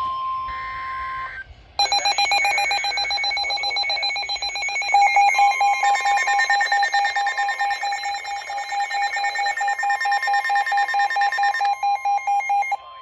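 Weather-radio emergency alert alarms for a flash flood warning: several electronic alert tones sounding together, fast pulsing beeps layered over a steady warning tone. They start about two seconds in after a brief gap, and the beeping cuts off near the end, leaving the steady tone.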